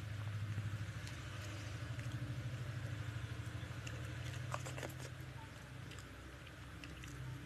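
A hand squashing and mixing rice into pomfret fish curry on a plate, giving faint soft squishes and small ticks, most of them about four to five seconds in. A steady low hum runs underneath.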